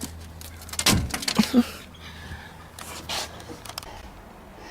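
Handling noise: a cluster of sharp clicks and scrapes from small hard objects about a second in, then a softer knock or rustle around three seconds.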